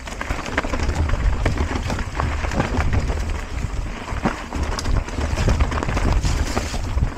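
Mountain bike rattling down a rough dirt trail: tyres rolling over ground and the bike clattering in a dense stream of quick, irregular knocks, over a steady low rumble of wind on the microphone.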